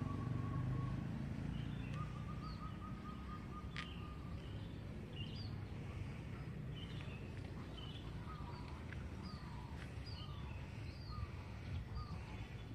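Small birds chirping in short repeated calls, over a low rumble of distant street traffic that eases off in the first couple of seconds.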